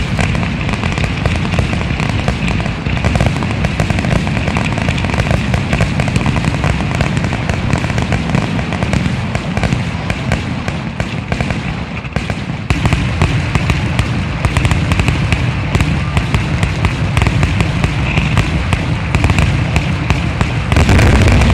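Fireworks finale: a continuous rapid barrage of aerial shells bursting, dense banging and crackling. It gets louder a little past halfway and peaks in a heavy salvo near the end.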